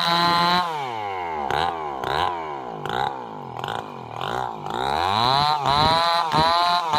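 Stihl chainsaw running at full throttle, dropping to idle about half a second in and blipped up and down several times. It is brought back to full throttle about five seconds in, with a flutter near the end as it cuts.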